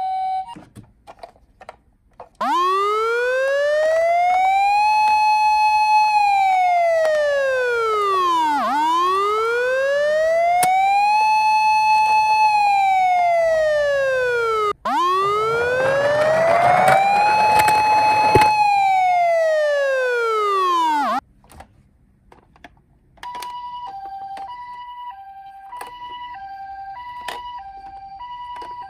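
Toy ambulance's electronic siren sounding a slow wail that rises, holds and falls three times, each cycle about six seconds, and cuts off abruptly. After a short pause it switches to a two-tone hi-lo "pee-po" pattern, alternating between two pitches a little over once a second.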